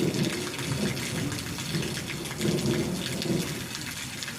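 Steady rain with many close drop patters, under a low rumble that swells and fades, like distant thunder.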